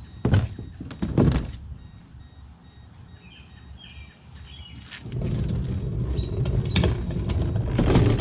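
A 10-foot plastic fishing kayak being handled: two hollow thunks about a second apart, then from about five seconds in a rough, sustained scraping rumble as the hull is dragged over the pavement and propped against the back of the car.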